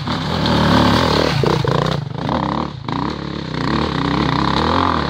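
Enduro dirt bike engine revving hard as it passes and pulls up a steep slope under load, the pitch rising and falling with the throttle and dropping briefly just under three seconds in.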